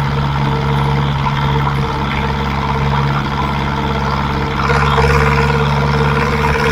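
Zetor 7211 tractor's four-cylinder diesel engine running steadily under way through its square enamelled exhaust, heard close to the exhaust. It gets a little louder about two-thirds of the way through.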